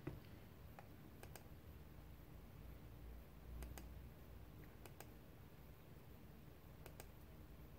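Faint computer mouse clicks, scattered singly and in quick pairs, over near-silent room tone.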